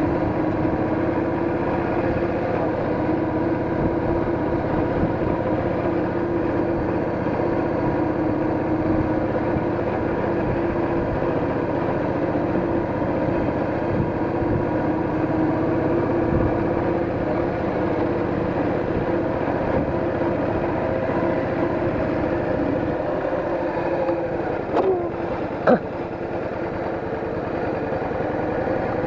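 Cruiser motorcycle engine running steadily while the bike rides along at an even pace, heard from a camera mounted on the bike with road and wind noise. The engine note eases off briefly near the end, with two short sharp sounds.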